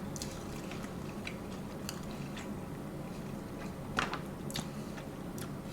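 Someone chewing a bite of a Coney dog close to the microphone: scattered wet mouth clicks and smacks, the strongest about four seconds in, over a steady low hum.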